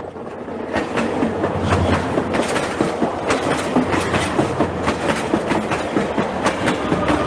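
A loud, dense rattling and clattering noise with many irregular clicks over a low rumble, starting suddenly out of silence, like a train running over rail joints.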